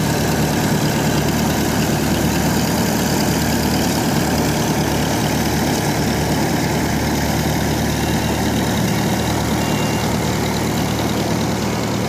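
Diesel engine of a Kubota DC60 combine harvester running steadily, with no change in speed.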